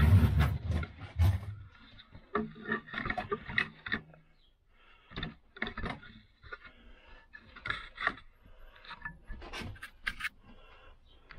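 Handling noise as the camera is moved and set down on a wooden workbench: loud bumps in the first second or so. Then scattered light clicks, scrapes and rubbing as parts and tools are handled on the bench.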